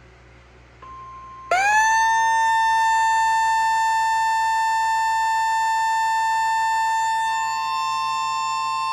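Siren that winds up in pitch in about a second and then holds one steady note. Beneath it runs a steady single beep-like tone, the 1050 Hz warning alarm tone of NOAA Weather Radio, which begins just before it.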